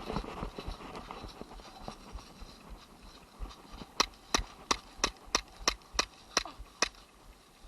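A quick run of about ten sharp clicks, about three a second, starting about halfway through and stopping near the end, after a first stretch of scuffling noise.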